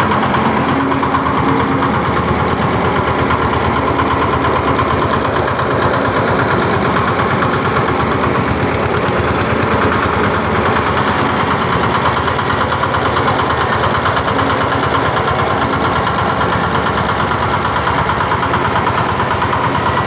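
Small engine of a concrete mini mixer running steadily at a constant speed, with a rapid, even pulsing.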